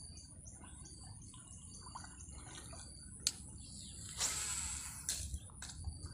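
Fishing reel whirring as line runs out during a lure cast, a brief rush about four seconds in with a few sharp clicks around it. Behind it, a steady high insect drone and repeating short chirps.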